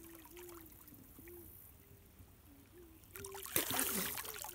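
River water lapping and trickling quietly, then splashing and pouring off a wading swimmer as he comes up from under the surface, about three seconds in; the splash is the loudest part.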